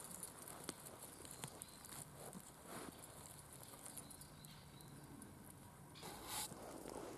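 Faint rustling of dry pine needles and small scattered clicks as a mushroom is cut from the forest floor with a pocket knife, with a slightly louder rustle near the end.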